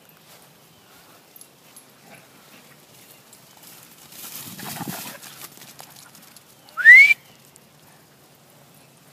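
Dogs scuffling and playing on grass, then about seven seconds in a short, loud rising whistle, the loudest sound here.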